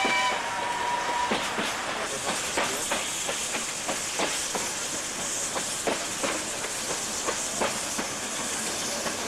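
Steam locomotive's whistle cutting off in the first second, then the steam-hauled train running: a steady hiss with irregular clicks of the wheels over the rail joints, heard from an open carriage window.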